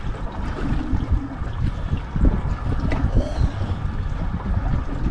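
Wind buffeting the microphone, with water lapping and slapping against the aluminium hull of a drifting boat in a choppy sea.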